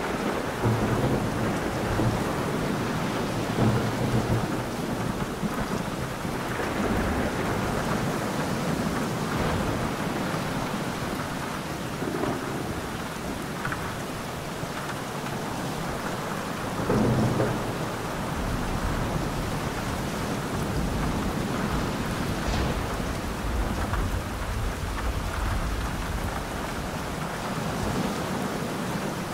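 Steady rain with rolling rumbles of thunder; the loudest rumble comes a little past halfway.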